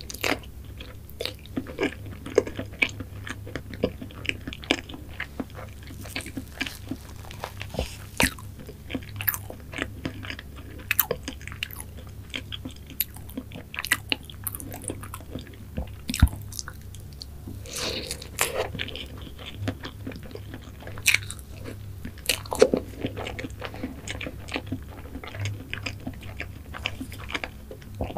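Close-miked eating sounds of a person chewing mango cake with whipped cream: frequent short mouth clicks and smacks, over a faint steady low hum.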